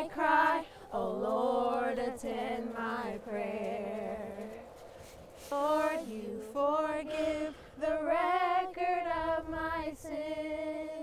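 A woman singing a slow melody unaccompanied, in phrases with short breaks between them and some long held notes.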